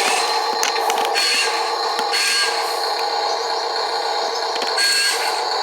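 Model dump truck's small electric motor and gearbox running with a steady whine, over scraping and a few clicks.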